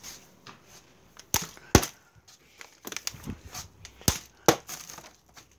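A few sharp knocks of a plastic water bottle being flipped and striking a table top, the loudest about two seconds in and a pair more near the four-second mark.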